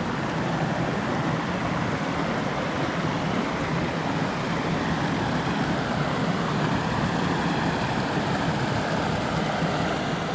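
Small mountain creek running steadily, water spilling over a fallen log in a little cascade.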